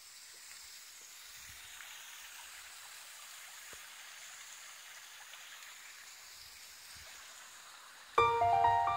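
Steady rush of water from a small stream. Piano music comes in near the end.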